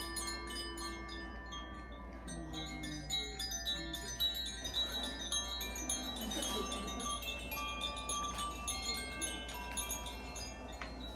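Makino-style Advance Chimes being played: a dense shimmer of quick, light strikes over many long ringing tones that overlap and sustain.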